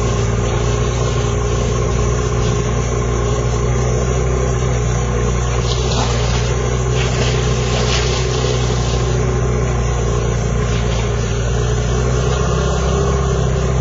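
A motor idling steadily, an even low hum that stays at one pitch and level throughout.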